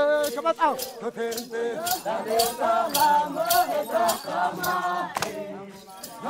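A group of Hadzabe villagers singing and chanting a pre-hunt dance song, several voices together, over a sharp clicking beat a few times a second.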